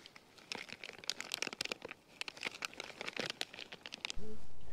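Thin plastic vacuum-seal bag crinkling and crackling in quick, irregular clicks as hands pull it open. Near the end a louder, steady low rumble cuts in abruptly.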